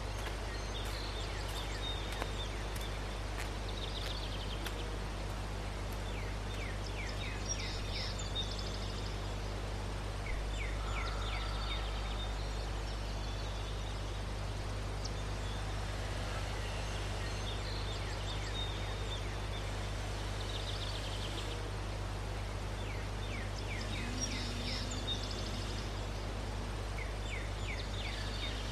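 Countryside ambience: a steady low hum, with a bird singing short phrases of rapid high chirps every few seconds.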